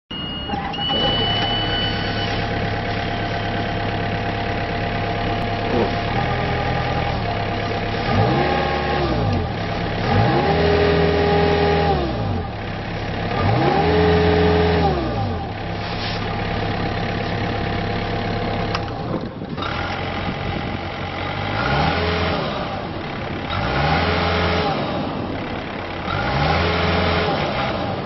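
Diesel engine of a Takeuchi TB153FR mini excavator idling steadily and revved up and back down six times, each rev rising and falling over a second or two. A brief high beep sounds in the first couple of seconds.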